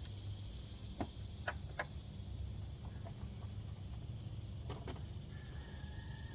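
A few light clicks and taps of parts and hand tools being handled at the truck's throttle body: three in quick succession about a second in, two more a few seconds later, over a steady low hum.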